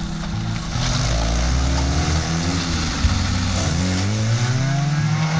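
Suzuki Vitara 4x4's engine revving hard under load as it drives through deep mud, getting louder about a second in and rising and falling in pitch with the throttle.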